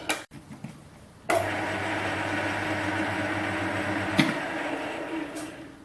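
A few light clicks, then a small metal lathe starts up with a sudden click about a second in and runs steadily with a hum for about three seconds. It is switched off with another click and spins down, fading away near the end.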